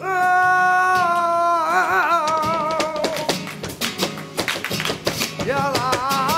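Live flamenco: a male singer holds a long note over guitar and breaks into a wavering melismatic run. In the middle of the passage the dancer's footwork and the palmas hand-clapping come in as a dense run of sharp strikes, and the held singing returns near the end.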